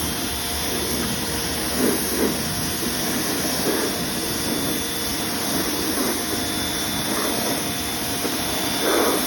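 Steady hiss of a pressurised spray, used to clean down a sanded wheel before painting, with a few faint knocks of handling.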